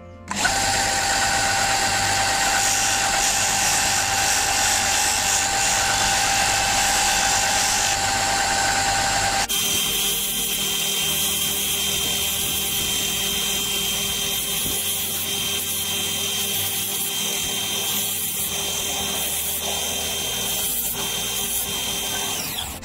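Ferrex bench belt-and-disc sander switched on and running steadily, with a piece of antler held against the spinning sanding disc and ground down to cut a whistle's notch. The machine's steady hum changes pitch abruptly about nine seconds in, and the sound drops away just before the end.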